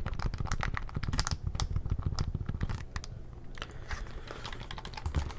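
Buttons on an Acer wireless keyboard being pressed in quick, close clicks, dense at first and sparser from about halfway. Under them runs the steady low drone of a string trimmer working outside.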